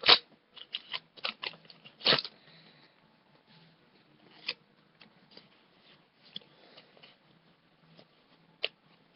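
Foil booster pack wrapper crinkling and crackling as it is opened, sharpest in the first two seconds, then sparse light clicks and faint rustles of trading cards being handled.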